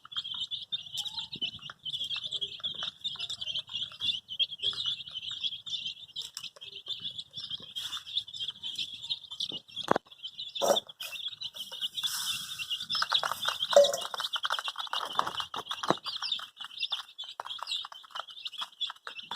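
A crowd of baby chicks peeping continuously, many high chirps overlapping. A couple of sharp knocks come about ten seconds in, and a rougher scratchy stretch follows a little later.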